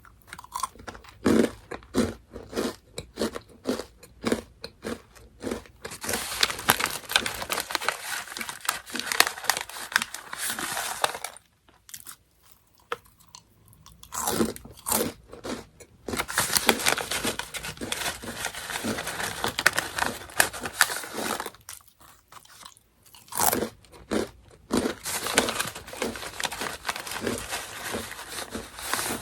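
Close-miked chewing of crunchy Orion Mala Chicken Pop snacks: steady rhythmic crunching bites, with dense stretches of rapid crunching and a couple of short pauses between mouthfuls.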